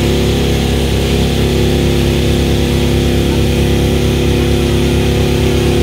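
Small boat's engine running steadily, a constant even drone.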